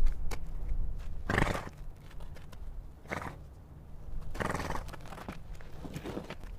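Zebra calling: four short barking calls about a second and a half apart, the last one fainter.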